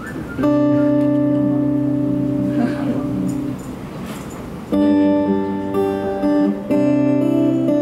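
Acoustic guitar playing the opening chords of a song, each chord ringing out for a second or more. There is a quieter gap in the middle, and the chord changes a few times.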